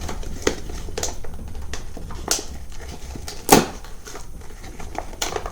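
Toy 5-pack box being handled and opened by hand: a run of small clicks and crackles, with one sharper snap about three and a half seconds in.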